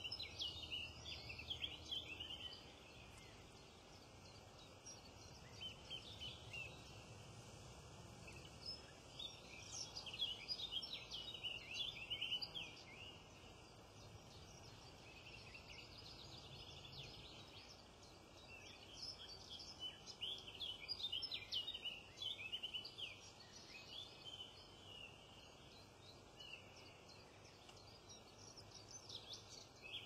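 Faint outdoor ambience with bursts of high, quick chirping and twittering from small birds, coming and going every few seconds.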